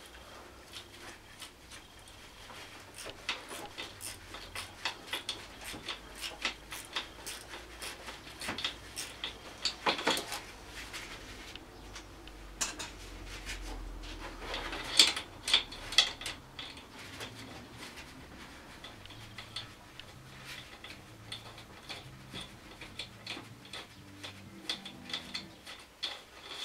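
Small metal clicks and clinks in irregular quick runs as hand tools and parts are worked on a scooter's four-stroke cylinder head, with a few louder clinks about fifteen seconds in.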